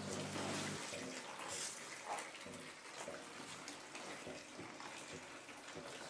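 Liquid running and splashing faintly. A steady machine hum underneath stops abruptly a little under a second in.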